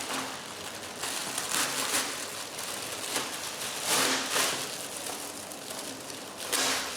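Thin plastic film crinkling and crackling in irregular bursts as it is worked loose and peeled off a sticky diamond-painting canvas.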